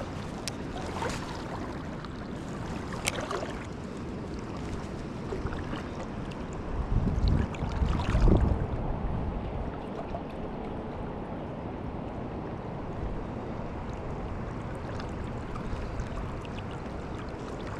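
Steady rush of a trout stream's flowing water, with a louder low rumble about seven to eight and a half seconds in.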